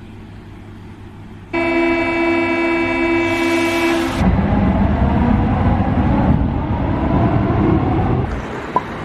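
Inside a Paris Métro carriage: a loud steady buzzing warning tone sounds for about two and a half seconds, the signal that the doors are about to close. A hiss follows, then the train pulls away with a loud running rumble that eases off near the end.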